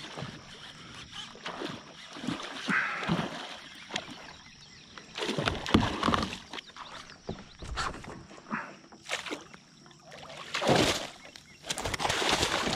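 Hooked northern snakehead thrashing at the water's surface beside a kayak, in several bursts of splashing and sloshing. The loudest bursts come about six seconds in and again near the end.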